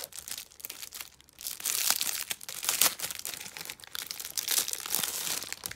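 Clear plastic wrapping crinkling and tearing as it is pulled off a pack of red envelopes, in irregular crackles that are loudest from about one and a half seconds in until near the end.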